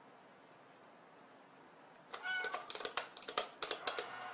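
After a quiet start, a toy cat coin bank's mechanism clicks rapidly as its lid begins to lift, with a high meow sounding over the clicks.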